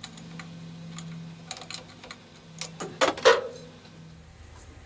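Metal wrenches clinking and tapping on engine parts: a scattering of sharp clicks, with the loudest cluster about three seconds in, over a faint steady low hum that stops shortly before the end.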